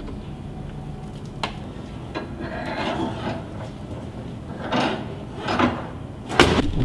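Handling noises at the front of a van with its hood up: rubbing and rustling as the diesel exhaust fluid filler is capped and the hood is lowered, with a click about a second and a half in and a sharper, louder knock near the end.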